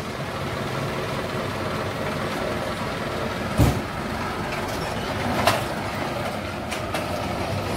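Light diesel truck engine idling steadily through a newly fitted 'srigala' aftermarket exhaust, with a single thump about halfway through.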